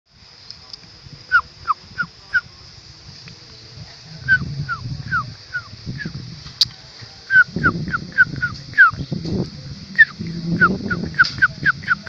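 A bird calling in quick series of about four short, down-slurred notes, over a steady high insect drone. Low rumbling noise comes and goes.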